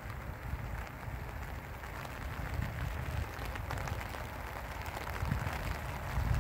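Light rain pattering steadily on a pond's surface, over a low rumble.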